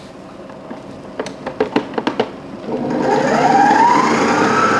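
A few clicks and knocks as the tilt head of a Mito Pico stand mixer is lowered and its speed dial turned. About three seconds in, the motor starts with a rising whine and settles into a steady run as the flat beater mixes an egg into creamed butter and sugar.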